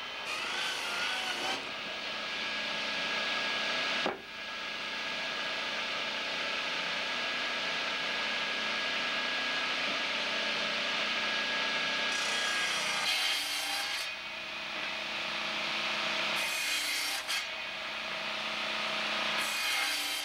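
Large circular saw cutting a briar root burl into blocks, wood on blade with a steady whine through each cut. There are several passes with brief breaks between them, the first about four seconds in.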